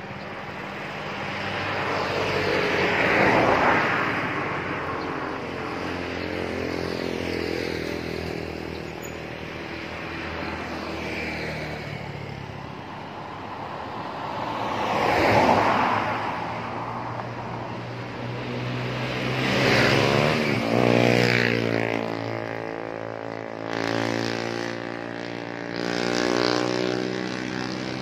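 Large buses and trucks passing by one after another, each engine and tyre noise swelling up and falling away, with the engine note bending in pitch as it goes past. The loudest passes come about 3 s and 15 s in, then two close together around 20 s.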